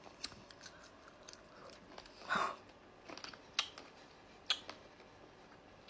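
A person chewing a piece of lavashak, a sticky sour fruit leather, with soft wet mouth clicks and smacks; a short breathy sound a little over two seconds in.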